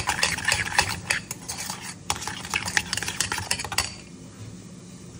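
Metal spoon beating a runny egg, parsley and seasoning mixture in a stainless steel bowl: rapid clinking and scraping against the bowl, which stops about four seconds in.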